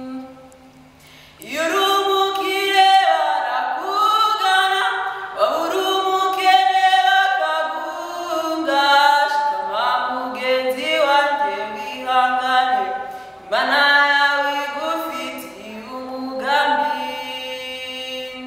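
Unaccompanied singing: a melody in long held notes, sung in phrases with short breaks between them, coming in strongly about a second and a half in.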